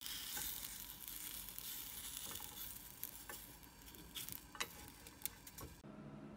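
Garaetteok rice cake sticks sizzling in a nonstick frying pan, with a few sharp clicks of wooden chopsticks against the pan as the sticks are turned. Near the end the sizzling cuts off suddenly, leaving a low steady hum.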